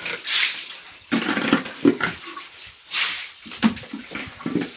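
Pigs in a pen grunting and splashing through water, in several short noisy bursts.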